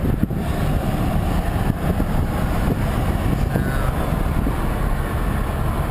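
Steady road and engine rumble inside a moving car's cabin, with the windows up.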